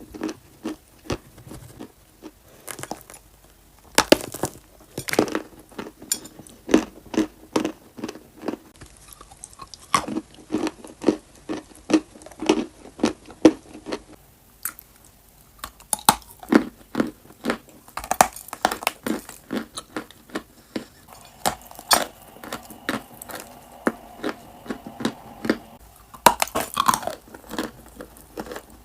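Close-miked biting and chewing of dry clay: many sharp, irregular crunches, several a second, as the pieces crack and are ground between the teeth.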